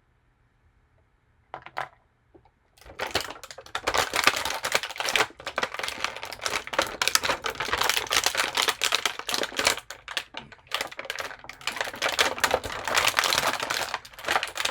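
Stiff clear plastic packaging crackling and clicking rapidly as it is handled and pulled from the tray, starting about three seconds in after a brief rustle.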